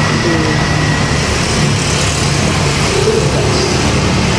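Steady motor-vehicle noise: car engine and road traffic running without a break.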